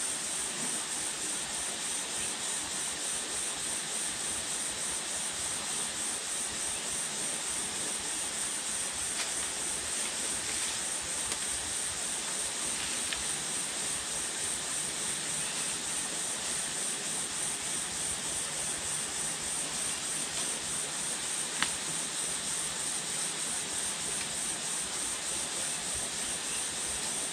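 Steady high-pitched drone of insects with an even background hiss, and a few faint clicks, the sharpest about two-thirds of the way through.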